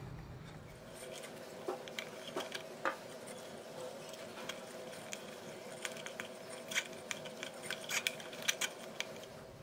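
Irregular sharp plastic clicks and rustles as a nylon cable tie is threaded and pulled tight around motor wiring, with the clicks coming thickest in the second half. A faint steady hum runs underneath.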